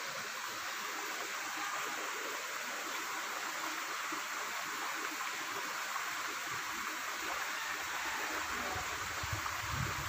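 Steady, even rushing of running water, unchanging throughout.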